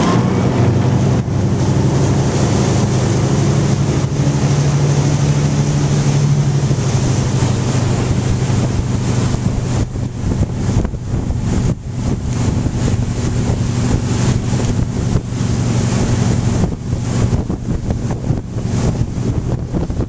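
Tow boat's engine running steadily under way, with wind buffeting the microphone, more unevenly in the second half.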